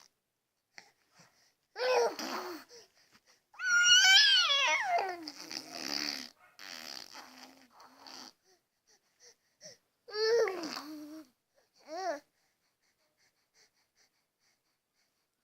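A baby imitating a car engine with his voice: several buzzy, breathy vocal bursts that slide up and down in pitch. The longest and loudest comes about four seconds in, with shorter ones before and after it.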